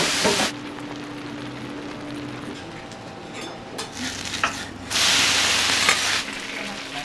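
Food frying and sizzling on a steel teppan griddle, with a few sharp ticks of metal on metal. The sizzle is loud at the very start and again for about a second around five seconds in, and quieter in between.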